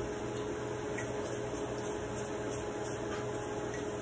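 Steady kitchen background hiss with a low hum and a faint steady tone; no distinct events.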